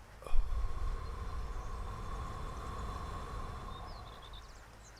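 A single struck metal tone, sharp at the onset, rings on steadily and slowly fades over several seconds. Under it is a low outdoor rumble, and a few short bird chirps come near the end.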